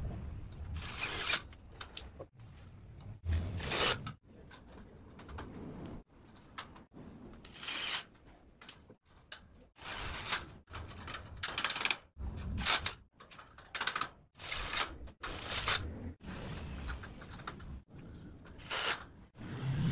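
Cordless driver whirring in many short bursts as it sets screws into steel drywall studs and track, each burst about a second long and broken off abruptly.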